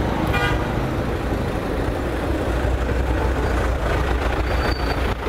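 Street traffic with a large vehicle's engine running close by, a steady low rumble. A brief high pitched sound comes about half a second in.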